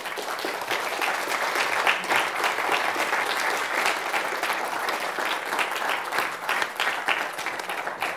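Audience applauding: many people clapping together, starting suddenly and holding steady.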